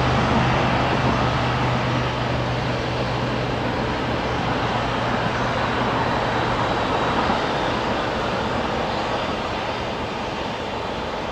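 Steady rushing noise of a large passing vehicle, slowly fading, with a low hum that dies away about two-thirds of the way through.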